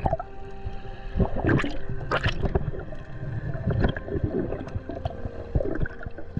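Water gurgling and splashing in about four bursts.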